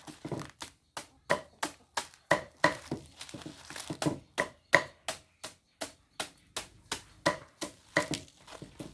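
A blade chopping steadily against a wooden block or board, about three sharp strokes a second, each with a short ringing knock.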